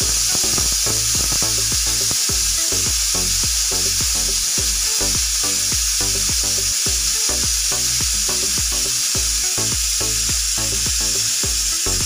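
Pressure cooker venting steam through its weighted whistle valve on a gas stove: a loud, steady hiss, the pressure-release blow-off that marks a cooker's "whistle".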